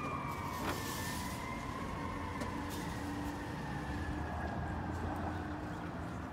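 Fire engine siren, a single tone sliding slowly lower over several seconds, over the steady low rumble of street traffic.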